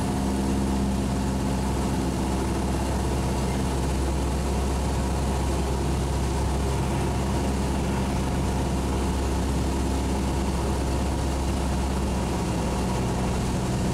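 Cessna 172's piston engine and propeller running with a steady drone, heard inside the cockpit.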